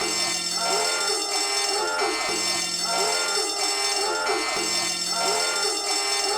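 Homemade electronic alarm sound: a short phrase of gliding tones that repeats about every two and a quarter seconds, with a low hum at the start of each repeat.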